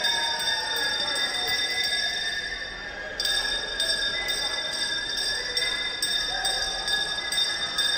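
Background music: sustained high ringing tones and sliding pitches over a steady pulse, dipping briefly about three seconds in and then coming straight back.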